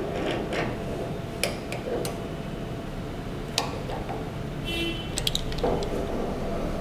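Scattered light metal clicks and knocks as a handwheel is fitted onto its shaft and turned on a small 4x6 metal-cutting bandsaw. A brief high squeak comes a little before five seconds in. A steady low hum runs underneath.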